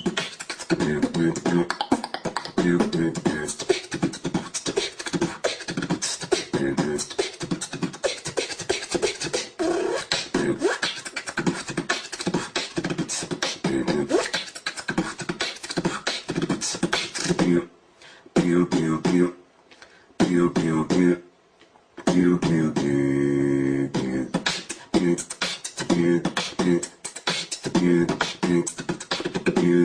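Solo human beatboxing: fast mouth-made kick, snare and hi-hat clicks layered with hummed bass notes. The rhythm drops out briefly a few times about two-thirds of the way through, then resumes with a held bass note.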